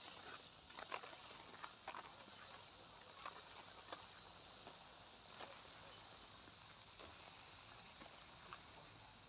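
Near silence: faint outdoor ambience with a steady high insect drone and scattered soft ticks.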